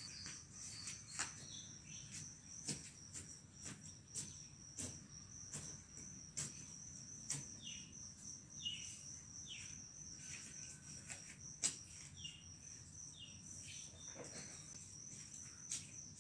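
A steady high-pitched insect trill, with scattered faint clicks and knocks and a few short falling chirps over it.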